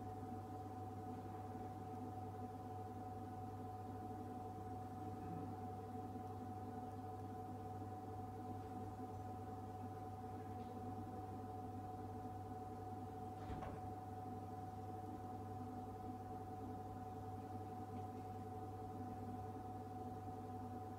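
Refrigerated drinks vending machine humming steadily: a low hum under a few constant higher tones. A single faint click comes about halfway through.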